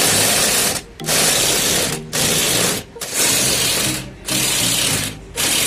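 Impact wrench hammering on an auto rickshaw's wheel hub nut in six bursts of about a second each, with short pauses between them.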